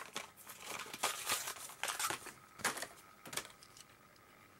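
Crinkling and tearing of a Hot Wheels blister pack, a plastic bubble on a cardboard card, in a run of irregular rustles and clicks as it is opened by hand.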